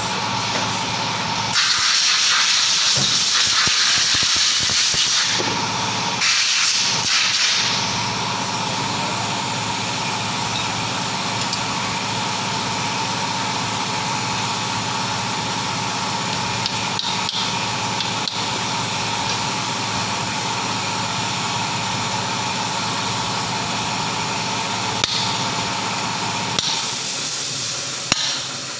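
Hissing air in three long bursts, the first two close together and the last near the end, over a steady machine hum.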